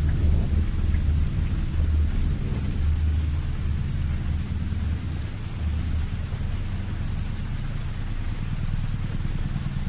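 Deep, ominous rumbling drone with a faint hiss above it, swelling and ebbing and easing slightly in the second half: a horror film's ambient sound design.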